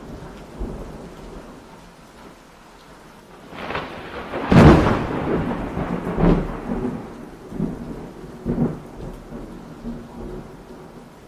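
Rain falling with thunder. The loudest thunderclap comes about four and a half seconds in, followed by several smaller rumbles.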